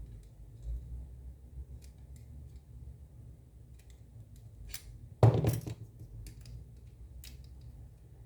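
Light clicks and taps of small plastic parts and tools being handled, with one louder knock and scrape about five seconds in.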